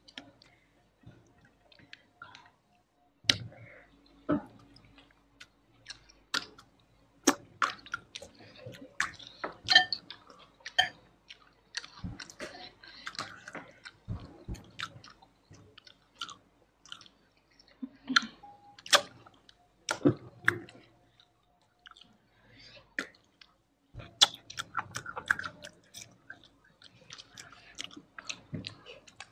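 Close-miked eating: wet chewing and mouth smacks, with many irregular sharp clicks and smacks scattered throughout.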